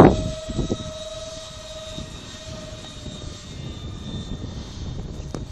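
Electric power unit of a radio-controlled Eurofighter Typhoon model jet whining in flight. It makes a steady high tone that weakens after about three seconds.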